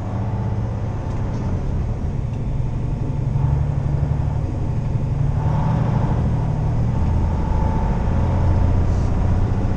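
Semi-truck's diesel engine running as the truck drives, heard from inside the cab, with a steady low hum and road noise. It gets a little louder over the first few seconds.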